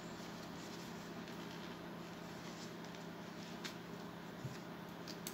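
Faint handling of a wristwatch and its cushion: a few soft clicks over a steady low hum.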